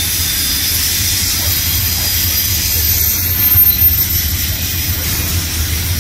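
Double-stack intermodal freight train's well cars rolling past, a steady low rumble of steel wheels on rail with a high hiss over it.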